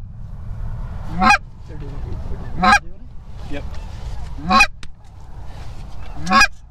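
Loud Canada goose honks, four of them roughly every one and a half to two seconds, each rising sharply in pitch, with fainter honking in between.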